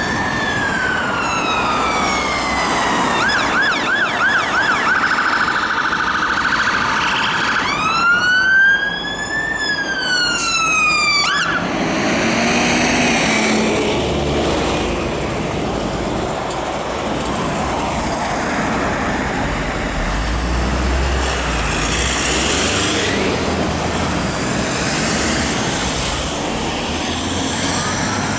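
Scania P310 fire engine's siren wailing, switching to a fast yelp and back to the wail, loudest as the truck passes about eight to eleven seconds in. The siren then cuts off, leaving engine and traffic noise, and a wail rises again near the end.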